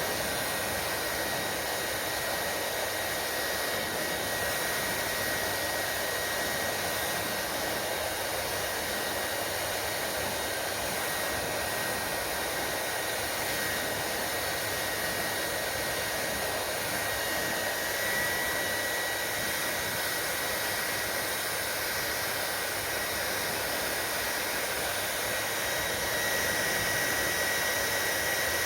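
Hair dryer running steadily: a constant rush of blown air with a thin high whine from the motor.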